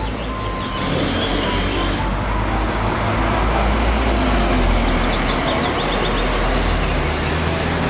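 Red double-decker bus driving along a street: steady engine and road rumble. A run of short high chirps comes in about four seconds in.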